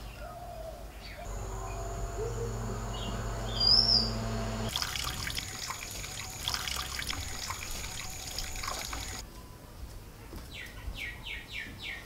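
Water splashing and trickling for a few seconds as tomatoes are washed by hand, with many small knocks of the fruit in the water. A single bird chirp comes just before the splashing starts.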